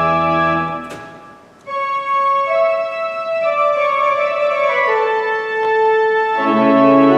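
An organ playing a slow instrumental piece in sustained, steady tones. A held chord breaks off about a second in, then a slow melody steps downward over held notes, and a fuller chord with bass comes in near the end.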